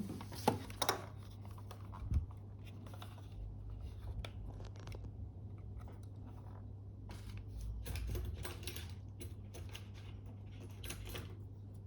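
Faint, scattered clicks and light scratching of small hand tools working on the parts of a disassembled Fuji GA645 film camera, heaviest near the start and again in the second half, over a steady low electrical hum.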